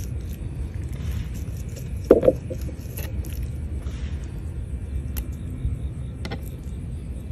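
Steady low outdoor rumble, with a brief louder sound about two seconds in. A few faint clicks come as a fillet knife cuts a weakfish fillet from the backbone on a plastic cooler lid.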